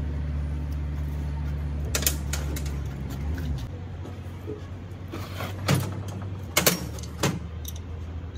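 A few sharp metallic clicks and clinks of a wrench and bolts against the cast-iron housing of an excavator hydraulic swing motor during reassembly, over a low steady engine hum that eases off a few seconds in.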